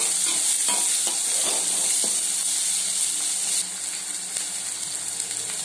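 Chopped onions, curry leaves and green chillies sizzling in hot oil in a steel pan as they are sautéed toward golden, with a spatula scraping and stirring them in the first couple of seconds. The sizzle drops a little in level a bit past halfway.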